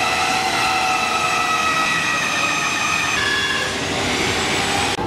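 Mafell portable band saw running and cutting through a thick glued-up timber beam: a steady motor whine over a noisy rush, its pitch changing about three seconds in.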